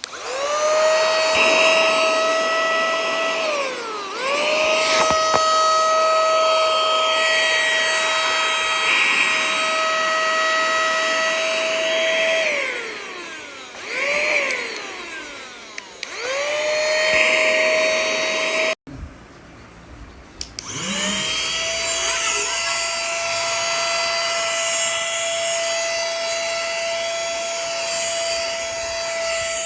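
Small cordless vacuum cleaner/air blower motor switched on and off several times, its whine rising in pitch as it spins up and falling as it winds down. Near the end it runs steadily.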